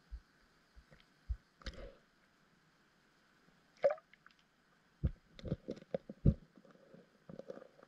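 Scattered muffled clicks and knocks heard underwater through an action camera's waterproof housing, a few early on and then a quick run of several thumps about five to six and a half seconds in.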